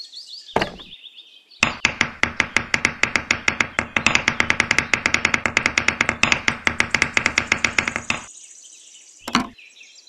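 Rapid, even knocking, about nine knocks a second, starting under two seconds in and stopping near the end; a single short knock comes just before it and another after it.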